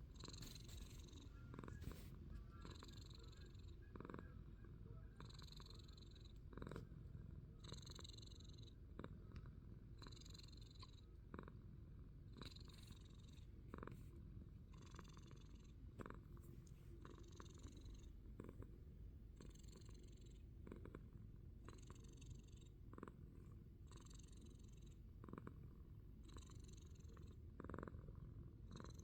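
Domestic cat purring faintly, the purr swelling with each breath about every two seconds, with a few faint clicks.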